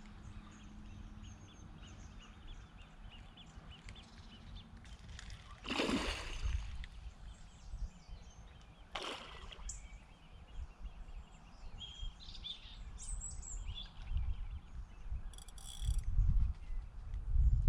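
Outdoor lakeside ambience: birds calling and wind rumbling on the microphone, louder near the end, with two brief rushing sounds about six and nine seconds in.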